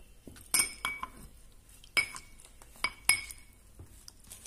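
Lemon slices and mint leaves being crushed in a small drinking glass, the crushing tool knocking against the glass in about six sharp clinks that ring briefly, spaced unevenly.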